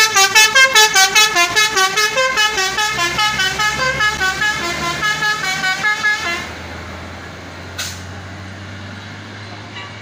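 Bus telolet horn playing a fast melody of short, changing notes for about six and a half seconds, then stopping, over the steady low hum of the bus's engine. A single sharp click comes near the end.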